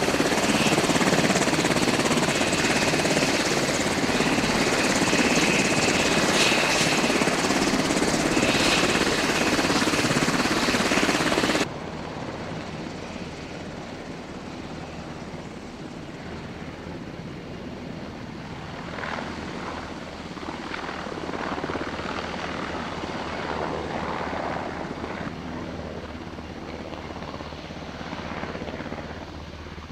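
Black Hawk-type military helicopter, engines and rotors running loud and close with a steady high whine. About twelve seconds in the sound drops abruptly to the helicopter in flight farther off, swelling and then fading as it passes.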